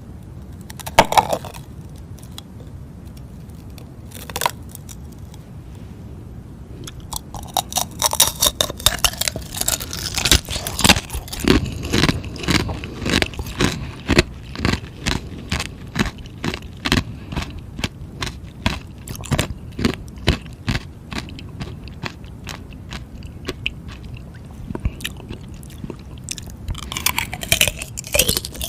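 Close-up biting and chewing of frozen ice: two separate sharp bites, then from about seven seconds in a long run of rapid crunching.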